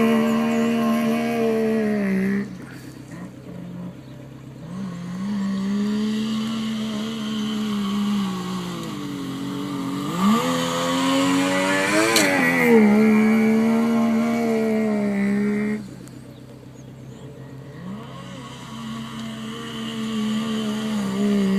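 Suzuki LJ50's small two-stroke three-cylinder engine held at high revs in long stretches, dropping back to idle about two seconds in and again near the end before revving up once more. Around the middle the revs climb to a peak and then settle.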